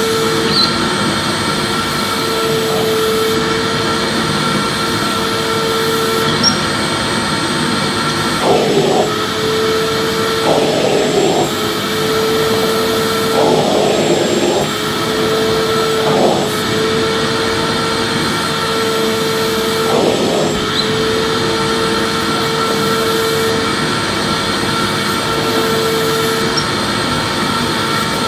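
Vacuum cleaner motor running steadily: a loud rush of air with a fixed whine, a lower hum that drops in and out, and a few short bursts of extra noise in the middle.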